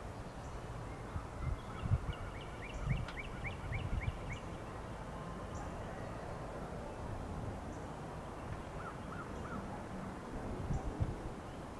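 Birds calling: a quick run of about eight short chirps a few seconds in, and three lower notes a little after the middle, over a low rumble with scattered thumps.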